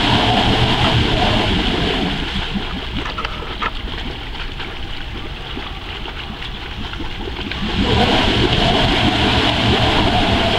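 Ram 1500 pickup's rear wheel spinning in shallow water on a slick boat ramp, churning up spray while the engine revs under load: the tyres are losing grip hauling the boat trailer up the ramp. The spinning and spray ease off for several seconds, then pick up loud again about eight seconds in.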